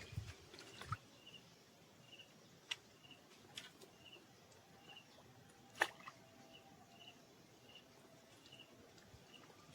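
Faint outdoor ambience with a short high chirp repeating steadily, roughly every half second, and a few sharp clicks, the loudest about six seconds in.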